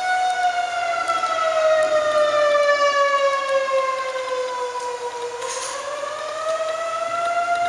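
Outdoor tornado warning siren sounding a long, slow wail: its pitch falls gradually for about five seconds, then rises again near the end. It is the signal of a tornado warning in effect.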